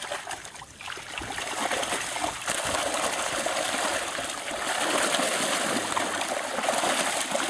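Fish crowded in a hauled-in seine net thrashing and splashing at the surface, a dense rushing splatter of water that grows louder a couple of seconds in.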